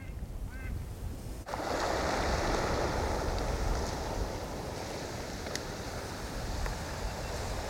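A few faint duck quacks, then from about a second and a half in a steady rushing noise of wind on the microphone.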